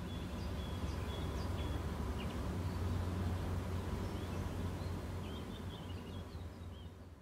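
Low, steady rumble of a tug's diesel engines heard across the water, fading out near the end, with small birds chirping now and then.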